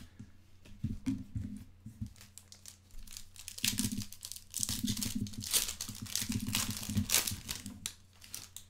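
A Panini Select Soccer 2016-17 trading card pack's wrapper being torn open and crinkled by hand. It makes a dense run of crinkles, heaviest from about three and a half seconds to seven and a half.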